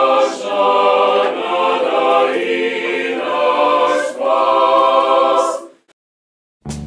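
A choir singing in sustained phrases, cutting off about six seconds in; after a brief silence, brass music starts right at the end.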